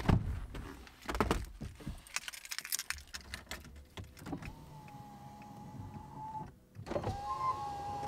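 Clicks and rustles of handling inside a car, then a small electric motor in the car, like a power-window motor, runs with a steady whine for about two seconds, stops briefly, and runs again near the end.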